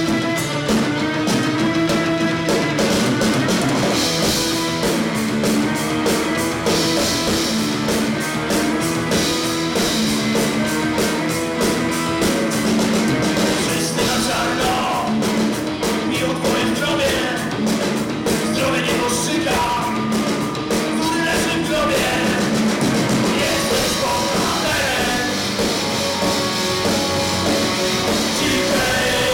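Rock band playing live: a single-cut electric guitar, an electric bass guitar and a Tama drum kit, loud and steady.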